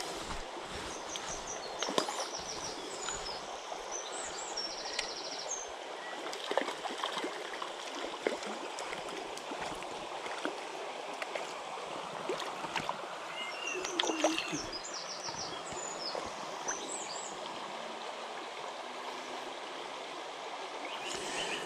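Shallow stony stream flowing steadily, with small birds singing short bursts of rapid high trills and chirps now and then, and a few sharp clicks and small splashes.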